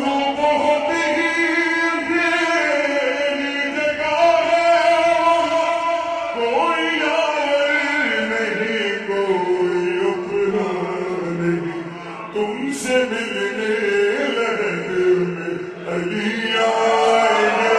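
Slowed-down, reverb-heavy recording of male vocals singing an Urdu qasida in drawn-out, long-held notes that slide slowly between pitches.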